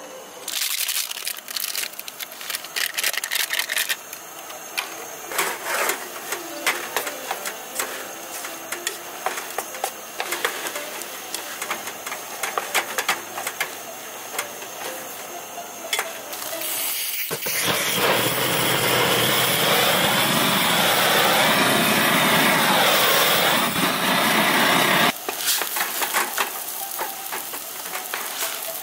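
Wooden chopsticks stirring noodles in an aluminium pot, clicking and scraping against the thin metal rim and sides. About seventeen seconds in, a loud steady noise with a wavering tone starts abruptly and cuts off about eight seconds later, then the stirring clicks go on.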